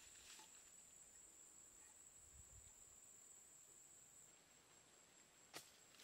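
Near silence: faint outdoor ambience with a steady high-pitched insect drone, which fades somewhat about two-thirds of the way through. A soft rustle of steps in leafy undergrowth comes just after the start, and one sharp click comes near the end.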